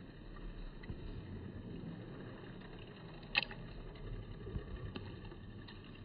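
Steady low outdoor rumble, with one brief, sharp, high sound a little past halfway.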